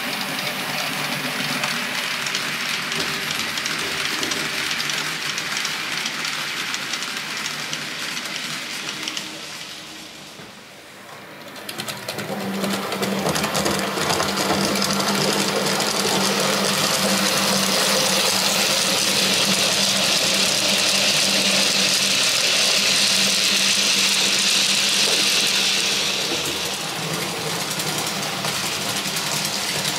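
TT-scale model train running on the layout: a steady whir of the small locomotive motors with wheels on the rails. The sound dips briefly about ten seconds in, then comes back louder.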